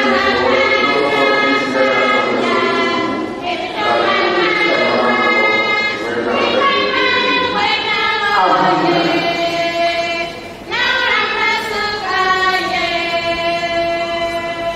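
Choir singing long held phrases with brief breaks between them.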